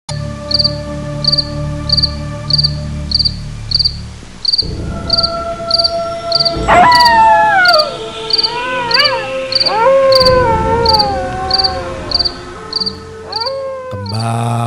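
Spooky sound-effects bed: crickets chirping about twice a second over a steady drone and low rumble, with a loud falling wailing cry about 7 s in and again about 10 s in.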